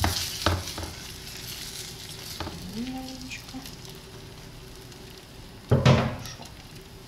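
Food sizzling in a frying pan, loudest at the start, with clicks and knocks of cookware and a glass pan lid being handled. A loud clatter comes about six seconds in.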